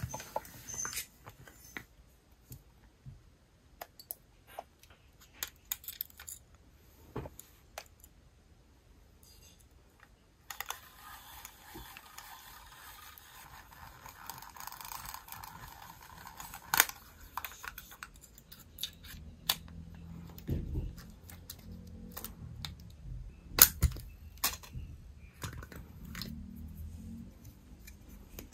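Nikon FM2 35 mm film camera being handled: a run of small mechanical clicks, then several seconds of a steady whirring rasp as the rewind crank winds the exposed film back into its cassette. After that come scattered clicks and knocks as the back is opened and the roll is taken out.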